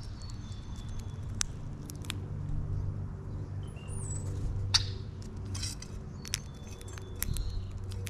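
Birds at a feeder: scattered sharp clicks and taps from beaks and feet on seed and the feeder, with a few faint short chirps. A steady low mechanical hum runs underneath.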